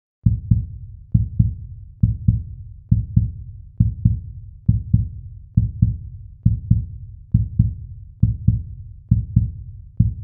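Heartbeat-like pulse in the soundtrack: low double thumps, in pairs, repeating a little faster than once a second.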